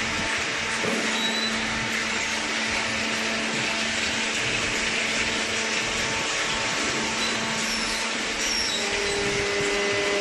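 Vertical hydraulic baler's electric motor and hydraulic pump running steadily with a hum and a whine; a new hum tone comes in near the end.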